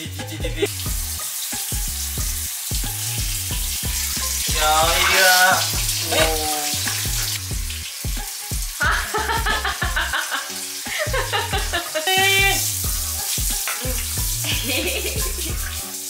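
Steady hiss of water running from a hand shower, under background music with an even low beat.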